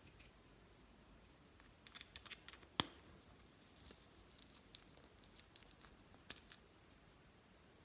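Slime being handled and mixed, giving scattered small clicks and crackles, with one sharper click about three seconds in.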